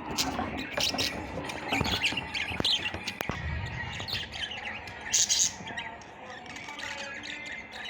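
Birds calling: many short, repeated calls and chirps, with a louder, sharper call about five seconds in.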